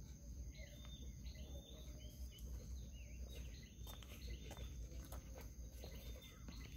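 Faint outdoor ambience: birds chirping repeatedly, over a steady high insect drone and a low rumble.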